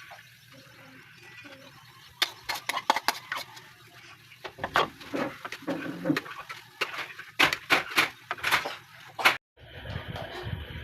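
Kitchen utensils knocking and clattering in irregular sharp strikes while pig's tongue is prepared. The strikes start about two seconds in and stop shortly before the end.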